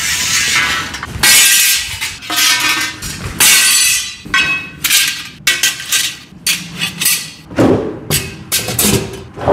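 Lever-action angle cutter shearing perforated steel angle iron: a run of sharp metal snaps and clanks, each followed by the steel ringing.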